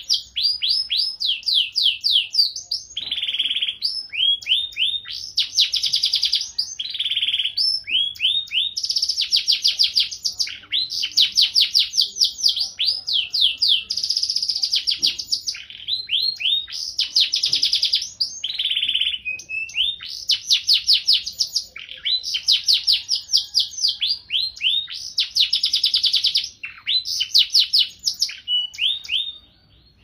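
Domestic canary singing a long, continuous song of rapid high-pitched trills ('rolls'), one repeated-note phrase after another with only brief breaks, stopping for a moment near the end.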